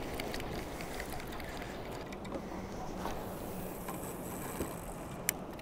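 A spinning reel being cranked, its faint ticks under steady wind and surf noise, with one sharp click near the end.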